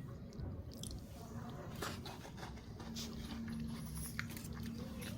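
Close-up chewing and biting of crunchy salted biscuits, with irregular crunches, and a faint steady hum in the background from about a second in.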